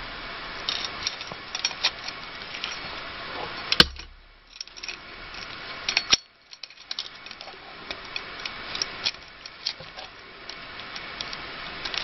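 Loose bicycle chain clinking and rattling as it is handled, metal links knocking together in many small irregular clicks, with a sharper click about four seconds in and another about six seconds in.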